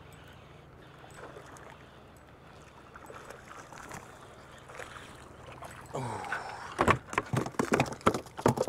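Hooked speckled trout splashing and thrashing as it is brought to the boat, with a quick run of loud, sharp slaps and knocks in the last two seconds.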